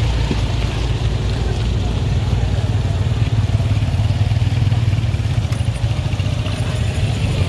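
A motor vehicle's engine running steadily, a deep drone with a fast, even firing pulse.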